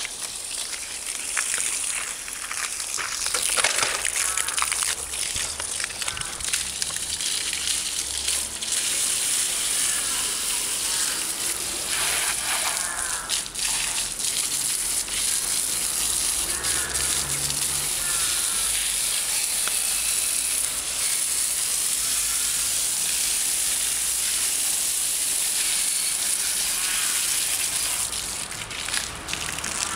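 Water from a hose nozzle hissing and splattering as the spray strikes a folding bicycle and the wet asphalt around it.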